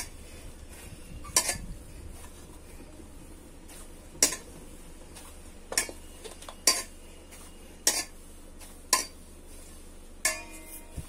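Stainless steel mixing bowl knocking and clinking as mawa dough is pressed and kneaded by hand in it: about eight sharp metallic knocks at uneven intervals, one ringing briefly near the end.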